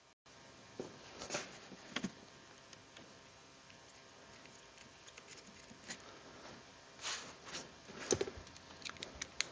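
Gloved hands refitting a generator's air intake tube and fittings: faint, scattered clicks, taps and rustles of metal and rubber parts being handled and fitted by hand.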